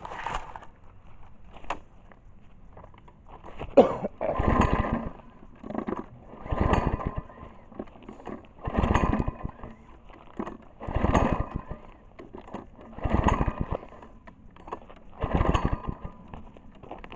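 Recoil pull-starter on a cheap Chinese lawn mower engine being yanked six times, about every two seconds, each pull a second-long burst of the engine cranking over without catching. A sharp click comes just before the first pull. The engine won't fire because its throttle is set to the kill position.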